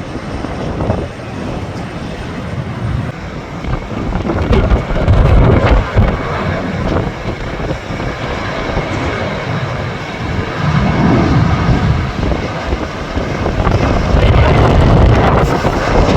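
Strong gusty wind buffeting the microphone, surging several times, over the steady run of a jet airliner's engines.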